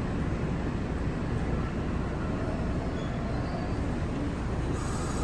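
Steady low rumble and hiss of a New York City subway train, a Brooklyn-bound M local, at the station as its doors close.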